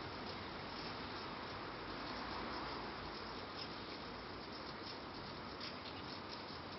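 Light rain falling in a steady hiss, with faint scattered high ticks in the second half.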